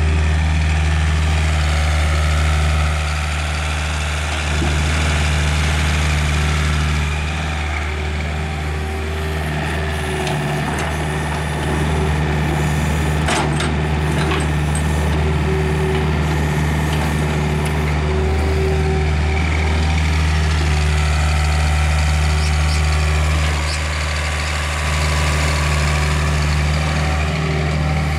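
Doosan DX55A mini excavator's diesel engine running steadily as the boom and bucket are worked, growing louder and quieter by turns. A few sharp clicks sound about halfway through.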